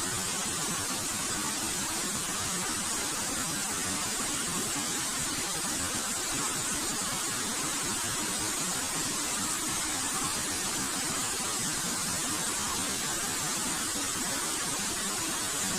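Waterfall: water pouring and splashing in a steady, unbroken rushing hiss.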